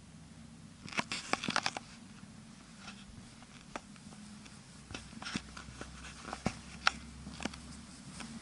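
Quiet stone church interior with scattered sharp clicks and taps: a quick flurry about a second in, then single taps every half second or so. These are the handling noises and footsteps of someone walking through with a handheld camera.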